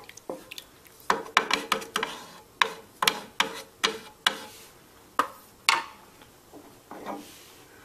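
Wooden spatula scraping and knocking against a non-stick frying pan while stirring cream with mint leaves in it: a quick, irregular run of strokes, thinning out near the end.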